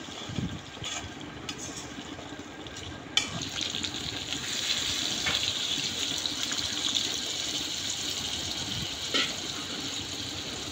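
Spiced chicken curry cooking in an iron pan, stirred with a flat metal spatula that scrapes and clacks against it. About three seconds in there is a sharp clack, and the hiss of liquid cooking in the pan then grows louder and stays steady.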